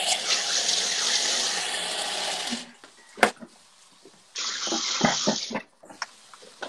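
Food processor running as it chops pistachios, with a steady whir under a gritty noise, stopping about two and a half seconds in. A sharp click follows, then a second, shorter burst of noise and a few knocks.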